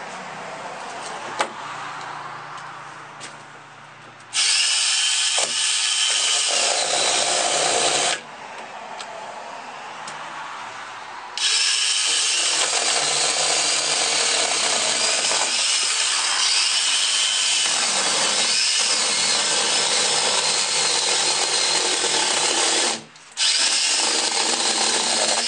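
Cordless angle grinder converted to a chainsaw, its chain running and cutting into a tree branch in bursts: about four seconds of cutting, a pause, then a long run with a brief cut-out near the end before it picks up again. The owner puts its hiccups down to a small, weak battery.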